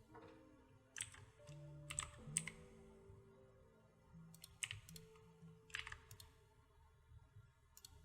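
Soft background music with slow held notes, and faint computer keyboard clicks in scattered groups of a few strokes.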